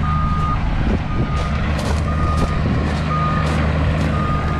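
Heavy-equipment backup alarm beeping about once a second, one steady high tone, over the low, steady running of the machine's engine, with a few clanks.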